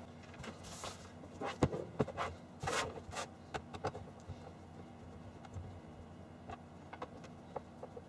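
Plastic casing of a UV nail dryer box knocking and scraping on a desk as it is handled and turned over, with several sharp knocks in the first few seconds. Then quieter small clicks and creaks as a screwdriver undoes the screws in its base.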